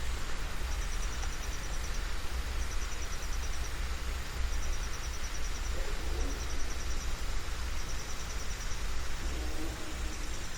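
Outdoor ambience: a high, fast pulsing chirp about a second long repeats every two seconds or so over a steady low rumble.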